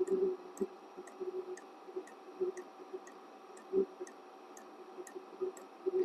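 Diesel heater running: its fuel dosing pump ticks evenly about twice a second over a steady low hum, with a few irregular soft thuds.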